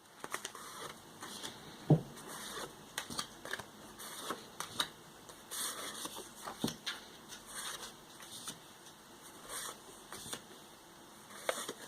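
Cardstock journaling cards from a pocket pages kit being handled and flipped through: soft rustling and sliding of paper cards, with a sharp tap about two seconds in and a softer one near seven seconds.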